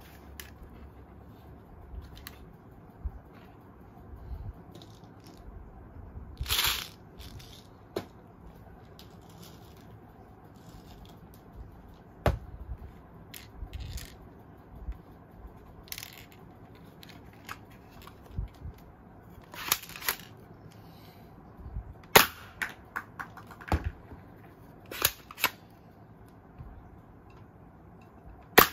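Manual spring-powered toy BB rifle being worked and fired: scattered plastic clicks and clacks from the cocking and trigger, with several sharper snaps of shots at irregular intervals.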